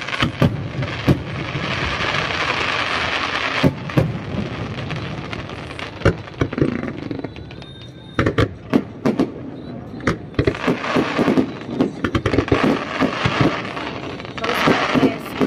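Fireworks display: aerial shells bursting with many sharp bangs, scattered at first and coming thick and fast through the second half.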